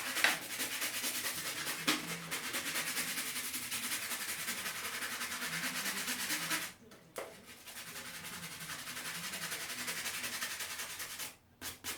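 Fast back-and-forth scrubbing of small plastic Lego pieces with toothpaste to lift dust and sticky grime. The scrubbing breaks off briefly a little past the middle, then goes on and stops shortly before the end.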